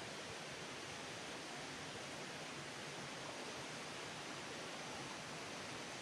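Faint, steady rush of a waterfall: an even hiss of falling water with no breaks.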